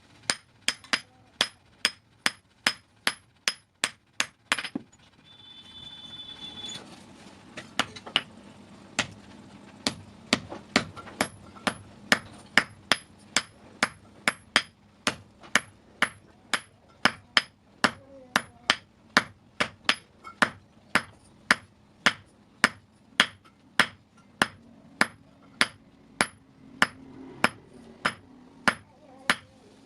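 Hand hammer striking steel on an anvil in a steady forging rhythm, about two and a half blows a second, each with a short metallic ring. The hammering stops for a couple of seconds about five seconds in, then resumes at the same pace.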